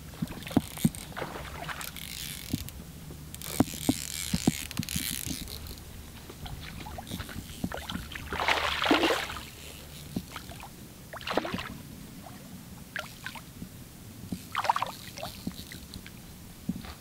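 Water splashing as a hooked largemouth bass is landed and lifted from the surface. Short bursts of splash noise come about two seconds in and again around eight to nine seconds, with scattered clicks and knocks of handling throughout.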